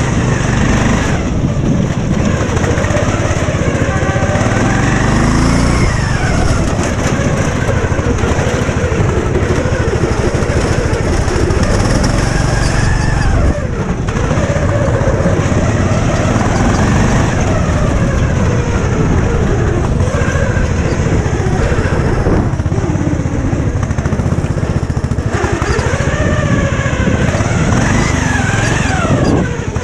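Lawn mower engine running hard, its pitch rising and falling again and again as it is revved and eased off.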